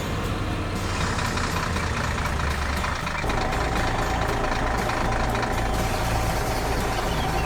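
Heavy truck engine sound effect running steadily, with a steady whine that joins about three seconds in.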